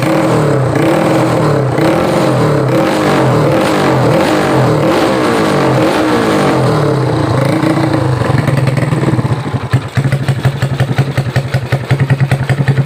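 Yamaha 5D9 motorcycle engine, built up to 150cc on standard valves, running and being revved, its pitch rising and falling repeatedly. From about nine and a half seconds the sound turns choppy, pulsing rapidly in loudness.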